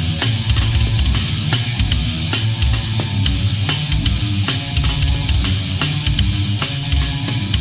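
Death crust metal played by a full band: distorted electric guitars and bass over a drum kit hit at a fast, steady pace.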